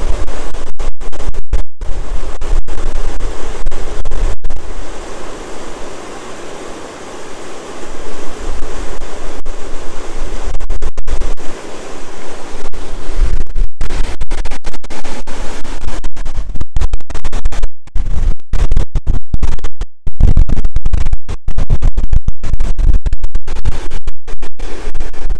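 Swollen river in flood, floodwater rushing in a steady roar, with heavy wind buffeting the microphone. The buffeting eases for a few seconds about five seconds in, leaving the rush of water.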